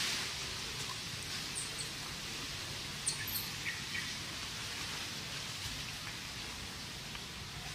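Outdoor ambience: a steady hiss with a few brief, high chirps scattered through it, the sharpest about three seconds in.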